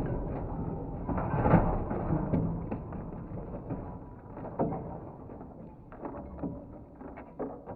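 Aftermath of a Volvo XC90 crash-test impact: a fading rumble with scattered clicks and clatters as loose parts and debris come down on the tarmac and the wrecked car settles.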